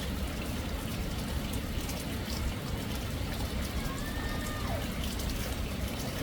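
Steady rushing of fast-flowing floodwater, heavy in the low end. A faint high call dips in pitch about four seconds in.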